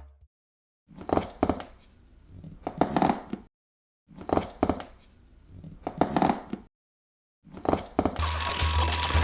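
A run of quick taps, knocks and clinks, played twice with short silences between. A third run begins near the end as music with a steady beat comes in.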